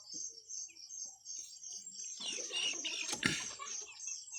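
Native chickens calling and cheeping over a steady, evenly pulsing high insect trill, with a louder scratchy burst and a sharp click about three seconds in.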